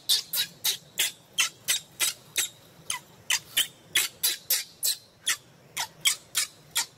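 Baby macaque screaming in distress while writhing on its back in a tantrum: short, shrill squeals repeated about three times a second, with a couple of brief pauses.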